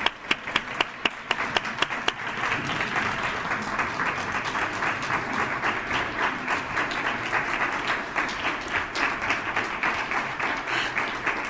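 A room full of people applauding, with one nearby pair of hands clapping sharply and evenly at first. From about two seconds in, the applause thickens into a steady, dense clatter.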